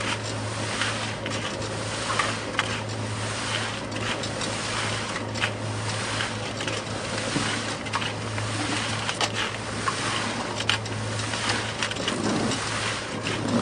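Concrete mixer running: a steady motor hum under the gritty churning of concrete in the mixer, with scattered clicks and rattles of stones knocking about.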